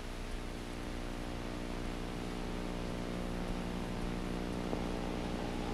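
Motor grader's diesel engine running at a steady, even pitch.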